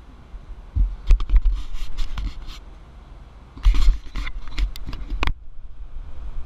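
Fingers handling a GoPro Hero+ action camera right at its microphone: scratchy rubbing, clicks and knocks with a heavy low rumble. They come in two bursts, one about a second in and one near four seconds.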